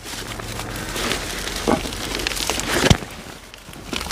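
Dry grass and thorny weeds rustling and crackling as they are gripped and pulled up by hand, with a few sharper crackles in the second half.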